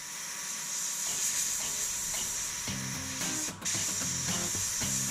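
Airbrush spraying white paint: a steady, high hiss of air, cut off for a moment about three and a half seconds in. Background music with a steady beat comes in partway through.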